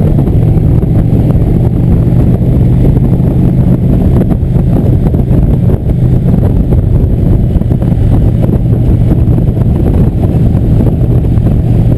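Cruiser motorcycle engine running steadily at cruising speed, heard from the bike itself, mixed with wind rushing over the microphone.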